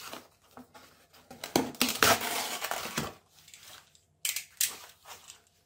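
Cardboard being handled and pressed flat with a steel ruler moved over it: a loud stretch of rustling and scraping in the middle, then a few sharp clacks near the end.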